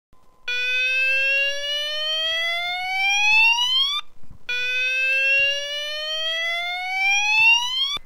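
ESP Banshee multi-tone fire alarm sounder sounding a slow whoop tone: two long rising sweeps, each about three and a half seconds, with a short break between them.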